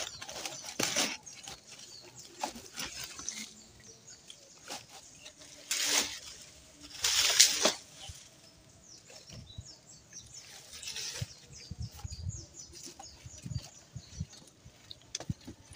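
Bundled sticks of firewood rattling and scraping against each other as they are pushed down into a white woven sack, with the sack and dry leaf litter rustling. The rustling comes in uneven bursts, loudest about six and seven seconds in, with small clicks of wood between.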